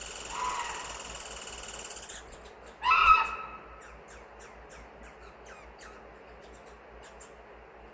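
Wild birds calling in a forest: one loud, short call about three seconds in, then a scatter of short, high chirps and small falling notes. A steady rushing hiss during the first two seconds cuts off suddenly.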